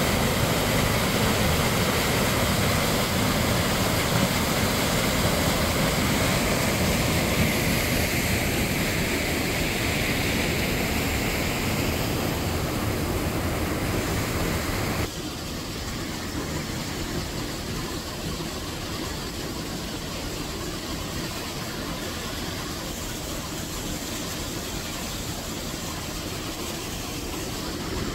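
Steady rush of water from a partly frozen waterfall pouring into a rock pool. About halfway through the rush drops suddenly to a quieter, duller level.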